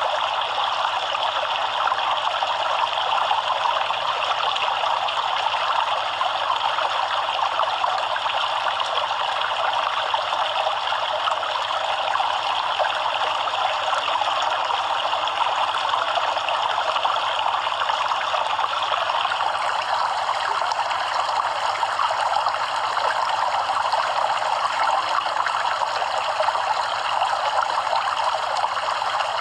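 Stream water running over rocks, a steady even rush and babble.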